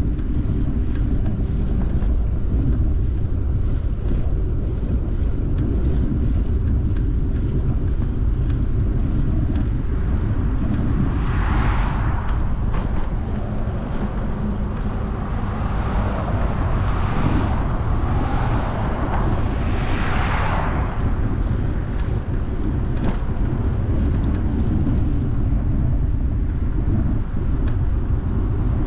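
Steady wind rumble on an action camera's microphone while riding, with the noise of passing traffic swelling twice, about 12 and 20 seconds in.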